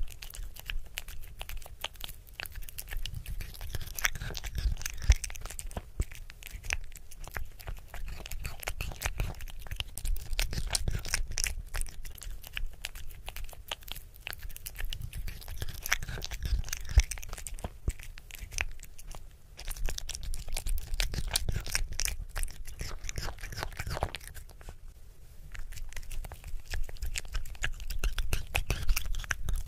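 Kitten eating chopped cooked beef from a plate: a dense, continuous run of short chewing and smacking clicks, with brief pauses about two-thirds of the way through and again a little later.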